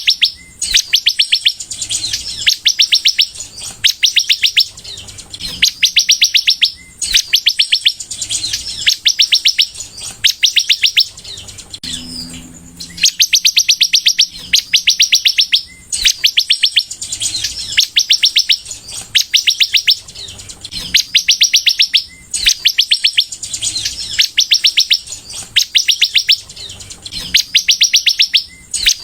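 Sunbird (Indonesian 'kolibri') singing in full song: fast, high trilled phrases about a second long, repeated over and over with short pauses.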